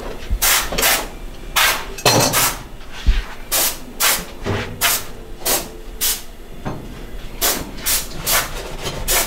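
A run of short, sharp hissing strokes, about two a second at uneven spacing, in a large echoing shop.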